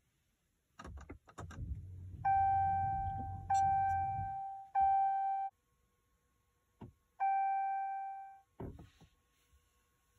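Car's electronic warning chime dinging four times, each a clear decaying tone, the first three in quick succession and the last a few seconds later, as the ignition is cycled during flashing of a tune. A few clicks and a low hum come as the ignition comes on, and a faint steady high whine sounds in the second half.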